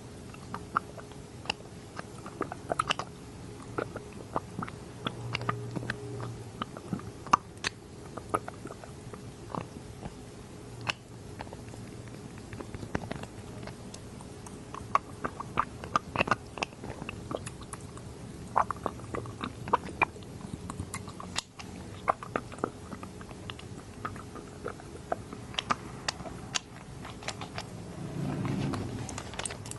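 Close-miked dropper being squeezed and handled: a busy, irregular run of small clicks, taps and wet squelching.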